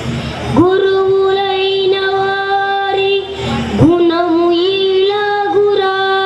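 A boy singing into a microphone, holding long steady notes, with a short break for breath just after the start and another about three and a half seconds in.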